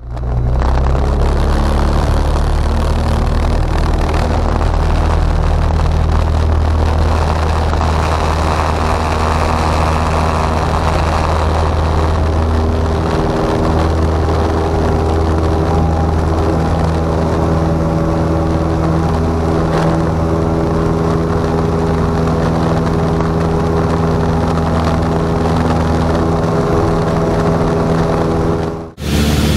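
Cessna 172's piston engine and propeller at takeoff power, a steady, loud drone heard from inside the cockpit through the takeoff roll and climb-out. The sound drops out for a moment near the end.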